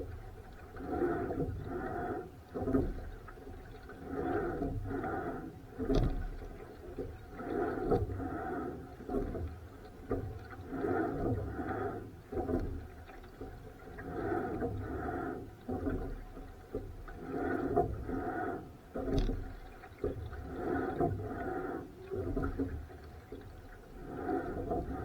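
Rowing boat out in strong wind: water splashing and sloshing in surges about once a second, with wind rumbling on the microphone.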